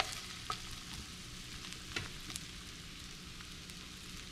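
A wooden spatula scraping and tapping in a skillet of cooked grouper meat and onions, a few short scrapes, over a faint steady sizzle from the hot pan.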